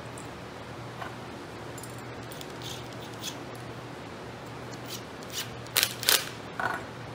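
A few light metallic clicks and clinks of a small fastener being handled and set onto an impact driver's bit. The two loudest clicks come close together near the end, over a steady low background hum.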